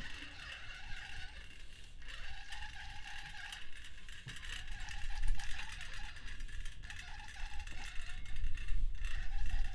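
Hoist lowering a 19 kg cylinder head, its mechanism running with a steady rattling, ratchet-like clicking.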